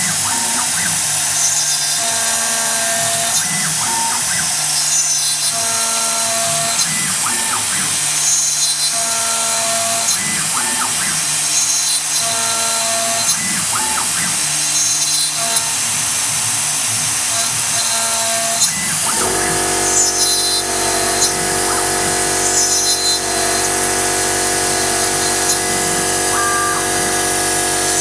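CNC router with a 2.2 kW spindle cutting, a steady high whine and cutting noise with tones that change pitch every second or so as the machine moves. About 19 seconds in, a steadier, lower hum comes in and holds.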